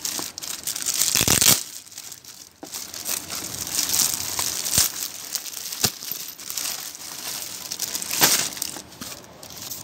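Clear plastic packaging film crinkling and rustling as it is pulled open by hand, loudest about a second in and again near the end.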